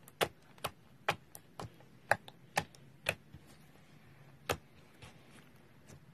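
Clear slime pressed and folded by fingers, with trapped air popping in sharp clicks about twice a second, thinning out to a few fainter pops after about three seconds.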